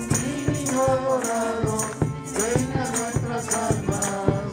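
Voices singing a Christmas song over a steady beat of shaken percussion.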